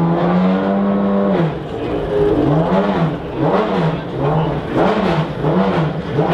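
McLaren F1 GTR Longtail's V12 engine being revved: held at a steady raised speed for about a second and a half, then blipped over and over, its note rising and falling roughly every two-thirds of a second.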